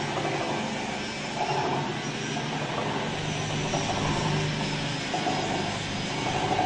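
Stainless-steel paddle meat mixer running steadily, its motor giving a continuous hum.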